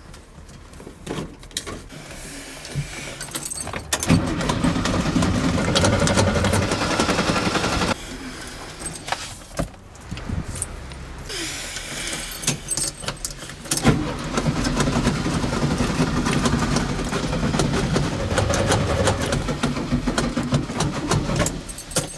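Classic VW Beetle's air-cooled flat-four being turned over by its starter without catching: two long cranking attempts, the first about four seconds in and lasting about four seconds, the second starting about fourteen seconds in and running for about eight. Keys jangle and click in the ignition between the attempts.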